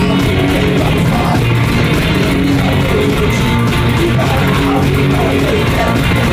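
Live garage rock played loudly on two electric guitars, strummed over a steady beat.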